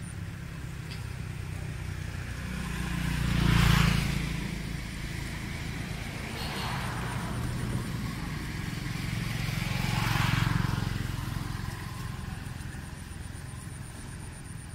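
Motor vehicles passing by, each one swelling and fading away: a louder pass a few seconds in, a lighter one around the middle and another near the end, over a steady low traffic hum.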